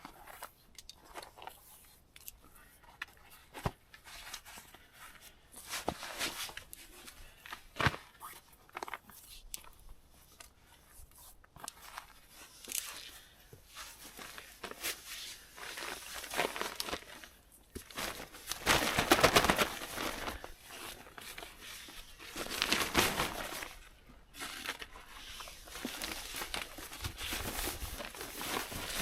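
Nylon tarp and camping gear rustling and crinkling as they are handled, with scattered clicks and knocks. The rustling grows louder for a few seconds about two-thirds of the way in.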